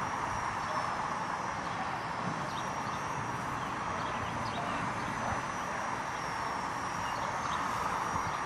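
Wind rushing over the microphone, with the thin, high, slightly wavering whine of a Walkera 4#3B micro RC helicopter's brushless motor and rotor running in flight.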